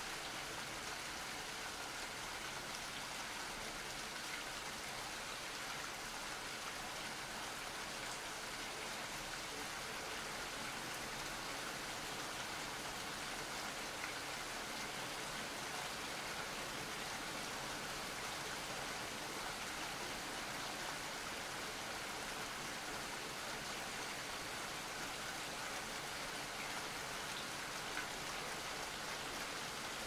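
Steady rain falling: an even, unbroken hiss.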